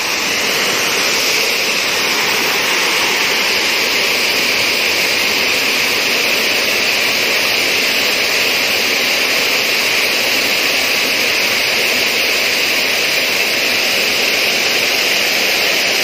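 River water pouring down the stone steps of a weir, a steady rushing noise with no change.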